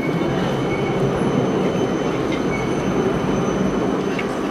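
Multi-section city tram passing close by on street track: a steady rolling rumble of wheels on the rails, with a faint, steady high-pitched squeal or whine over it.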